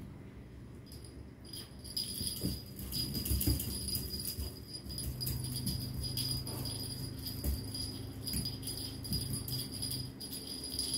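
Wand cat toy jingling and rattling in quick shakes as it is swung and dangled, with a steady bell-like ringing; the shaking gets busier about two seconds in.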